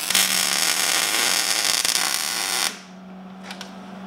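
MIG welder laying a tack weld: the arc gives a steady crackling sizzle for about two and a half seconds and then stops suddenly, followed by a couple of faint clicks.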